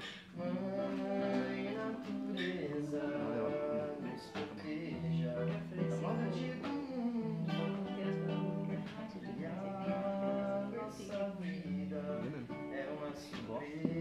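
Two acoustic guitars playing together, one of them a nylon-string classical guitar, picking and strumming chords with ringing, sustained notes.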